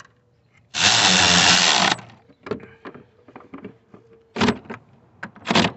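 Battery-powered driver spinning bolts in: one run of a little over a second, then two short bursts near the end as the bolts are snugged down. Light clicks and knocks of tools and parts come in between.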